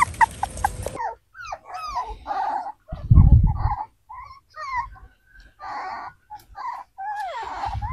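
A litter of young dachshund puppies whimpering and squeaking: many short, high yelps that rise and fall and overlap. A low thump sounds about three seconds in.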